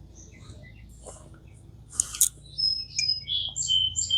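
Small songbirds chirping: a quick run of short, high chirps and whistles starting about halfway through, with two sharp clicks just at its start, over a low steady background hum.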